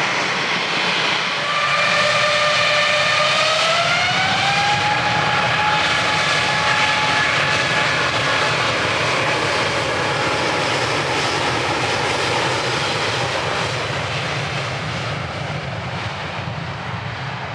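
Jet airliner engines spooling up to takeoff thrust: a loud steady roar with a whine that rises about four seconds in and then holds, the roar easing off slowly near the end.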